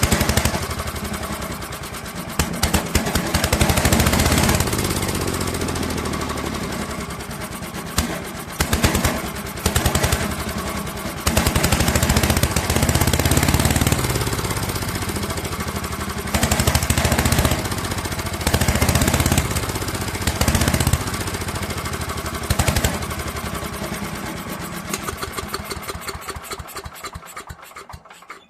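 Small gasoline engine of an old Craftsman chipper shredder running unevenly after sitting unused for years, its speed surging up and sagging back several times, then winding down and stopping at the very end.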